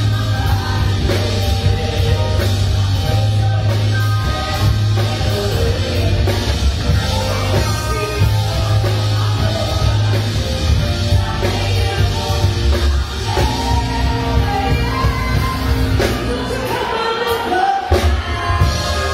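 Live band playing with a woman singing lead into a microphone over electric guitar, bass guitar and drum kit. The bass drops out briefly near the end.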